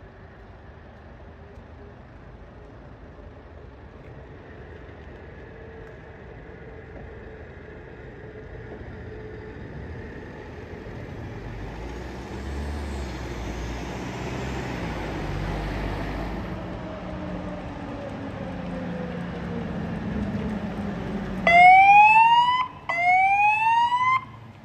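Approaching fire engine: engine and road noise grow steadily louder, then near the end its siren gives two loud, short rising whoops about a second apart.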